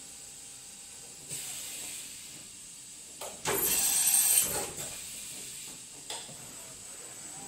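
Doosan DNM 400 II vertical machining center changing its spindle tool automatically: a loud hiss about a second long midway, with a shorter hiss about a second in and a brief click and hiss near the end.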